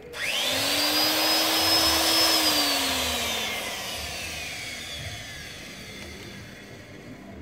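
A small electric motor with a rush of air, like a blower, switching on and spinning up to a high whine. It runs steadily for about two seconds, then is cut off and winds down, its whine falling slowly.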